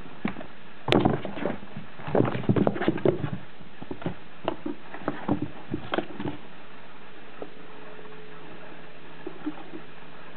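Kittens scrambling and playing on a fabric sheet beside a cardboard box: scattered rustles and light knocks, busiest in the first three seconds and thinning out after about six.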